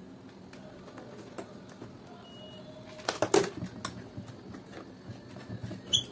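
Scattered light clicks and taps of hands handling the opened hand mixer's plastic housing, wires and test leads, with a loud cluster of knocks a little past halfway and a sharp click near the end.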